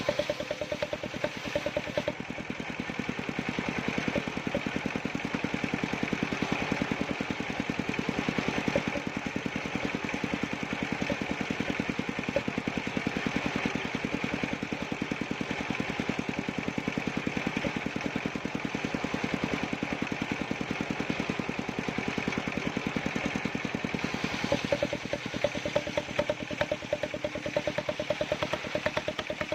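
An engine running steadily at an even speed, its firing pulses rapid and regular, with a constant higher hum over it. No distinct cut into wood stands out.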